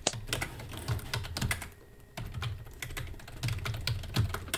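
Rapid, irregular typing on a computer keyboard, with a short pause about two seconds in.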